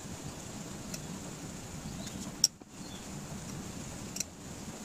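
Steady low background noise with a faint hum, broken by two short clicks, one a little over two seconds in and one near the end, the first followed by a brief dropout.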